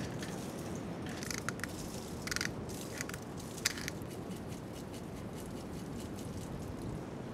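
A seasoning shaker shaken over popcorn: several short, dry, gritty shakes in the first few seconds, over a steady low background rumble.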